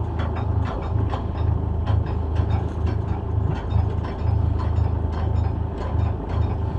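Hand-worked anchor windlass on a sailing barge clicking as the anchor is hauled up, its pawl ticking in quick, irregular clicks, over a low steady drone.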